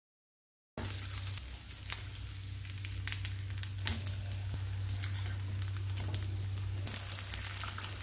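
Adai, thick lentil-and-rice pancakes, sizzling steadily in oil in a multi-cavity nonstick pan. A few light clicks come from a spatula turning them. The sizzle starts suddenly about a second in.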